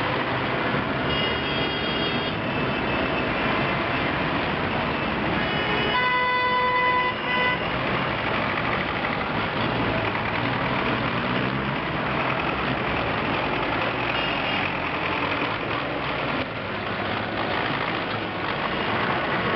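Farm tractors' diesel engines running as they drive past at low speed, a steady mechanical din. A vehicle horn sounds once for about a second and a half around six seconds in.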